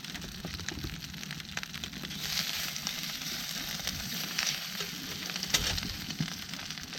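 Steady sizzling hiss with frequent sharp crackles and pops, the sound of a campfire or of food frying over it. It grows louder from about two to five seconds in, with one sharp pop a little after five seconds.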